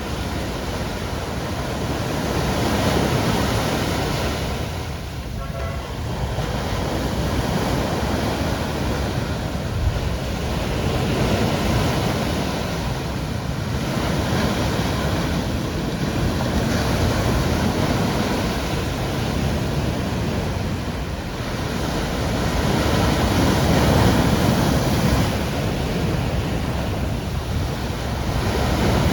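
Caribbean sea waves breaking and washing in steadily, the surf swelling louder every several seconds and easing between breakers.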